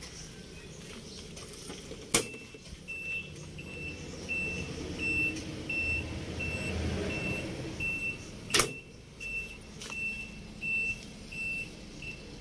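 A vehicle's reversing alarm beeping steadily, about two short high beeps a second, starting about three seconds in. Two sharp knocks cut through it, one about two seconds in and one past the middle, and a low rumble swells in the middle.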